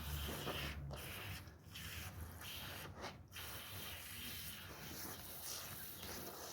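Woollen rug being washed: a steady wet hissing and rubbing noise, broken by a few short pauses in the first half.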